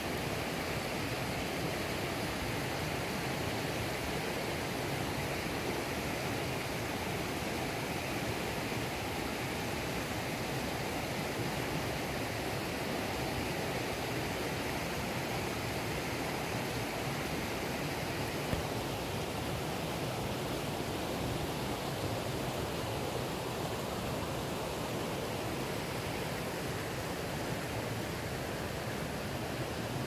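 Valley stream running steadily, an even rushing water noise.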